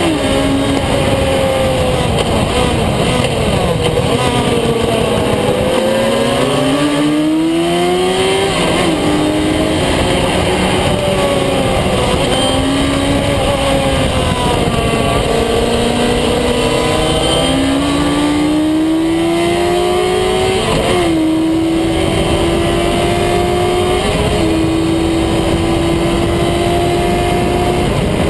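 Engine of a vehicle driven hard on a race track, its pitch rising under acceleration and falling as it slows for corners. In the last third it revs up through the gears, with a sudden drop in pitch at each of three upshifts.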